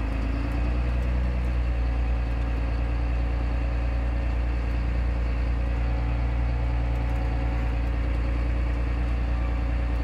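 Tractor's diesel engine running steadily while driving, heard from inside the cab as an even, low drone.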